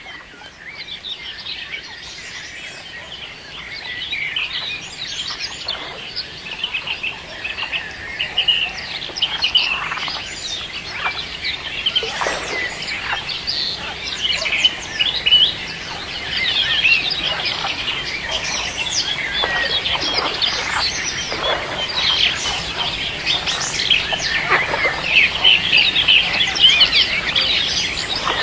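Many birds chirping and calling at once in a dense, continuous chorus of short, high chirps, growing louder after about four seconds.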